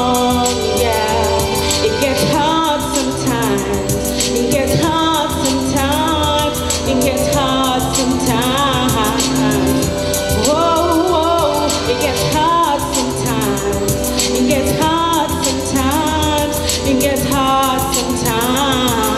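Live gospel-pop song played by a band on stage, with a sung melody that bends and wavers in pitch over a steady backing.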